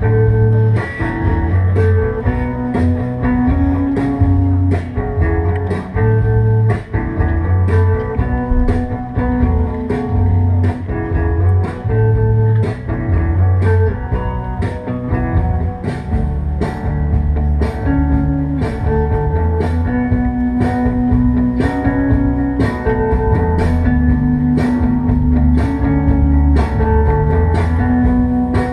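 Background music with a steady beat, bass and guitar, played through the hall's speakers as a slideshow soundtrack.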